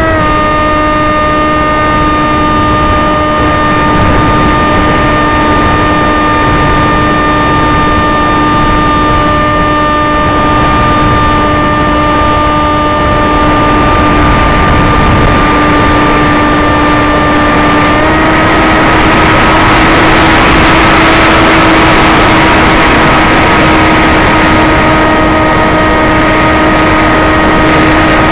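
Skysurfer glider's electric motor and pusher propeller running steadily in flight, heard from on board as a constant whine over rushing wind. The pitch steps up slightly about two-thirds of the way through as the throttle is raised, and the wind rush grows louder.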